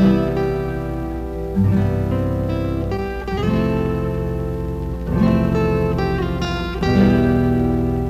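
Background music on strummed guitar, a new chord about every two seconds, over a steady low hum.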